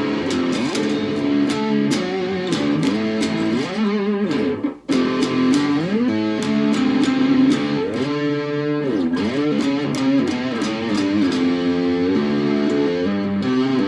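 Electric cigar box guitar played with a slide through an amplifier, notes gliding up and down over held bass notes, with a brief break about five seconds in. It is a sound check of a newly fitted single-coil pickup.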